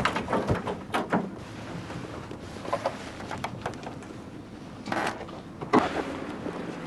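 Handling noises on a light aircraft's metal wing during a pre-flight check: scattered clicks and knocks, with a short rustling rush about five seconds in and a sharper knock just after it.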